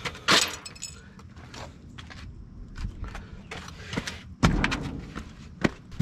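Thumps and clatter of junk being moved and knocked about inside a dumpster: a loud knock right at the start, two more near the end, and smaller clicks and rustling between.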